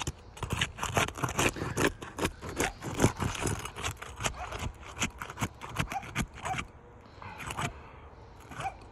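Roof shingles being worked loose by hand: irregular scraping, rasping and clicking strokes, busiest in the first two-thirds and sparser toward the end, with a few short rising chirps in the second half.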